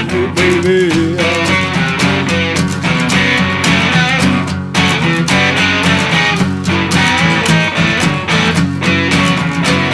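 Rock music in an instrumental passage: guitars play over drums that keep a steady beat.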